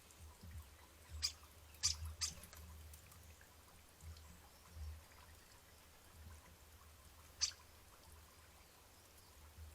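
Small garden birds feeding: four short, sharp high-pitched sounds, three within the first two and a half seconds and one about seven and a half seconds in, over a low rumble.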